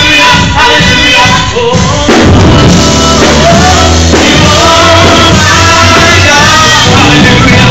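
Live gospel worship music, loud: a male vocalist sings into a handheld microphone over keyboard and band accompaniment. About two seconds in, the pulsing beat gives way to held low chords under the voice.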